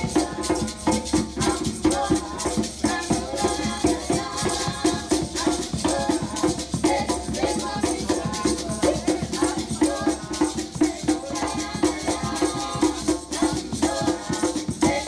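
Upbeat background music with a quick, steady shaker-and-percussion rhythm.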